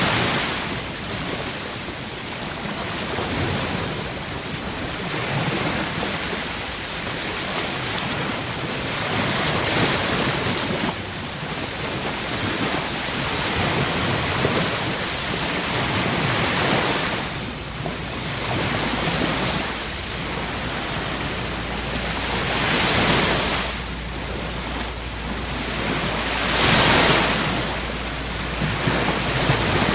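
Sea waves surging and washing in, a steady rush of surf that swells and ebbs every few seconds, with several stronger waves breaking.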